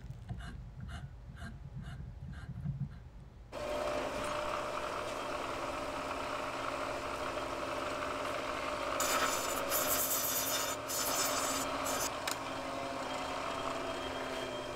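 A die turned by hand to cut threads on a steel rod, a series of short scraping clicks. Then, about three and a half seconds in, a bench grinder running steadily, and from about nine to twelve seconds the steel rod ground against its wheel, a harsh grinding noise that comes and goes.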